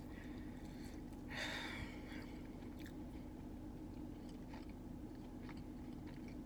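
A person chewing a fried chicken sandwich, with small wet mouth clicks and a brief crunchy burst about a second and a half in. A steady low hum runs underneath.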